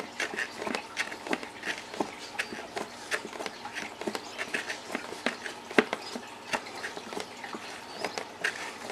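Hand reamer being twisted in a hole in a plastic tackle box lid, shaving the plastic to widen the hole: irregular scraping clicks and creaks, several a second, with one sharper click a little before the middle.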